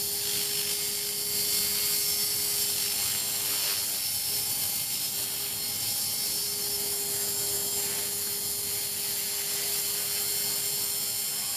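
Align T-Rex 450 Pro electric RC helicopter in flight: a steady high-pitched whine from its motor and gears, mixed with the rotor noise, its pitch wavering slightly as it manoeuvres.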